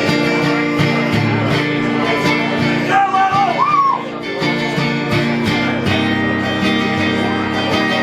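A live rock band playing an instrumental passage: strummed guitar chords over bass in a steady rhythm, with a short gliding note that rises and falls about three seconds in.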